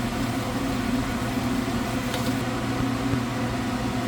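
Kitchen range hood fan running: a steady low hum with an even hiss over it.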